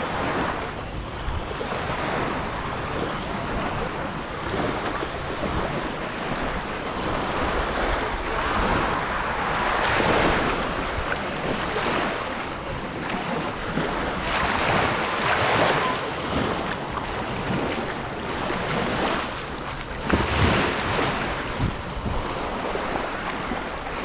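Surf breaking and washing up the shore, swelling every few seconds, with wind buffeting the microphone.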